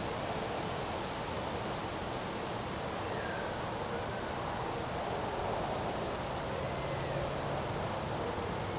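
Steady rush of wind in a windstorm, with a few faint short high chirps over it.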